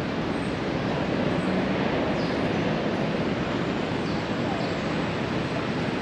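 Steady city street ambience: a constant haze of traffic noise, with faint voices here and there.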